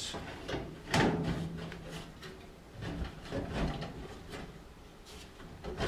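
Sheet-metal dryer heating element assembly being slid back into the cabinet: a knock about a second in, then intermittent scraping and knocking of metal parts.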